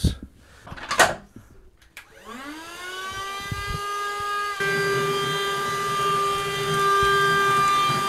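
WOLFBOX USB-rechargeable handheld wet/dry vacuum switched on after a click about a second in: its small motor spins up with a rising whine about two seconds in and settles into a steady high whine, which steps up louder a little past halfway.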